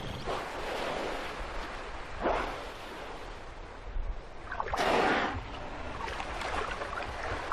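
Orcas surfacing in open water among sea ice and exhaling: three separate breathy blows over the sound of lapping water, the loudest and longest about five seconds in.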